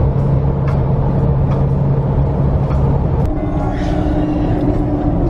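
Car engine and road noise heard inside the cabin while driving: a steady low rumble and hum. About three seconds in there is a click and the hum changes pitch.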